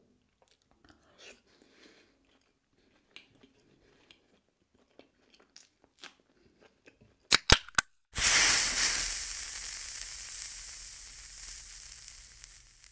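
Faint chewing and mouth sounds of eating by hand. About seven seconds in come three sharp clicks, then a sudden loud hiss-like whoosh that slowly fades away, a sound effect for a smoke-reveal logo intro.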